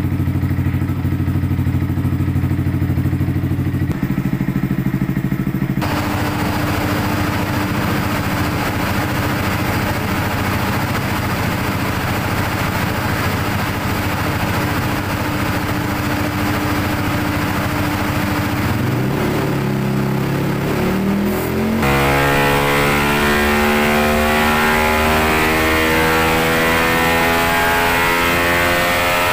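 Yamaha R15 single-cylinder engine with an Akrapovic exhaust running on a motorcycle dyno. It runs at a steady speed at first, a loud steady rushing noise joins about six seconds in, and from about twenty seconds in the revs climb steadily under load in a wide-open-throttle power pull.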